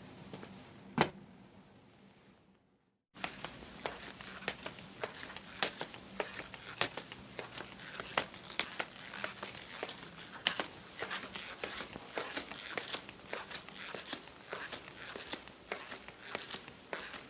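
Footstep sound effects: one sharp step about a second in, a short silent gap near three seconds, then a steady run of crisp, crackling steps, several a second.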